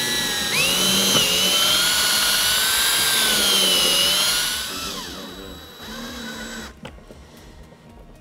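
Cordless DeWalt drill-driver running under load. Its motor whine climbs in pitch about half a second in, holds with a slight waver, and winds down about five seconds in. A second, shorter run follows about six seconds in.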